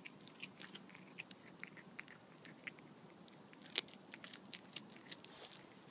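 Cat chewing and crunching a mouse it has caught: a quick, irregular run of small crunches and clicks of its teeth, with one louder crunch about two thirds of the way in.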